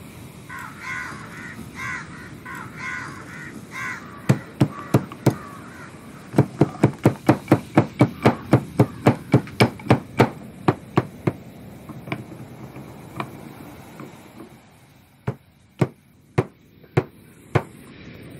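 Stone pestle pounding in a small stone mortar: sharp knocks, four at first, then a fast steady run of about three strikes a second, then slower, spaced strikes near the end. A bird calls repeatedly in the first few seconds.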